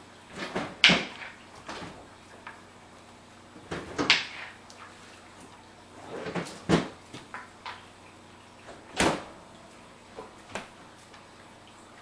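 A series of irregular sharp knocks and clacks from kitchen items being handled and set down on a stone counter.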